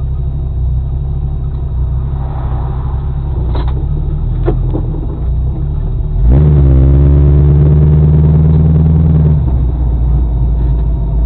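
Car engine and road rumble heard from inside the cabin; about six seconds in the engine revs up sharply as the car accelerates hard, holding a loud steady drone for about three seconds before easing off.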